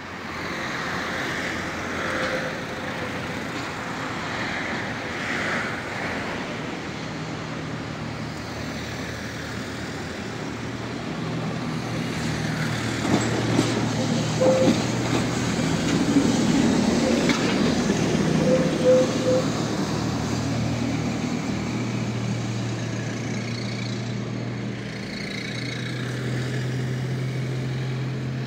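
Tatra T4D tram running on street track, its motors humming low and its wheels rumbling, loudest as it passes in the middle. A few short beeps sound near the middle.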